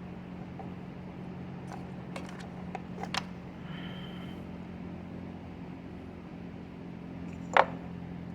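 Jeep Compass four-cylinder engine idling with a steady hum while misfiring on one cylinder from a faulty ignition coil. A few light clicks come about two to three seconds in, and a sharp click near the end is the loudest sound.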